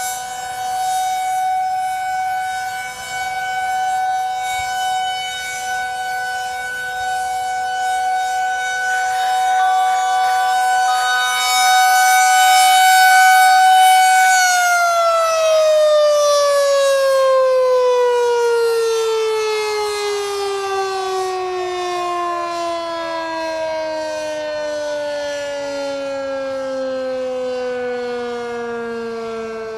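Federal Signal 2001-SRNB electromechanical tornado siren sounding a steady tone at full speed during a test. About halfway through, it is shut off and winds down, its pitch falling steadily.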